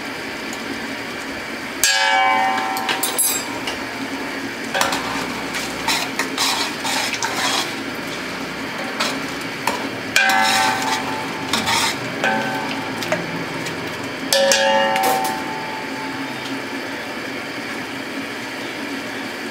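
Long metal spoon stirring chicken masala in a large aluminium pot, scraping along the sides and clanging against the metal three times with a ringing tone, about 2, 10 and 14 seconds in. A steady hiss runs underneath.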